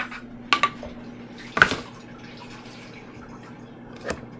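Microwave oven running with a steady low hum while it heats a bowl of butter and brown sugar, with a few knocks and clatters over it, the loudest about a second and a half in.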